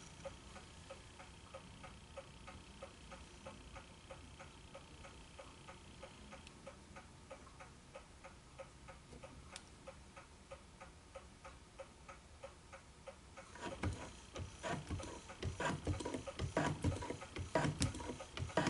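Faint, regular ticking. About 13 seconds in it gives way to a louder run of irregular metallic clicks and knocks from the shop-built hand shaper being worked by hand.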